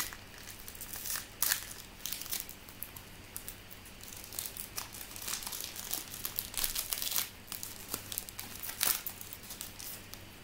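The wrapper of a trading-card pack being torn open and crinkled by hand, in irregular crackling rustles with a few sharper crackles.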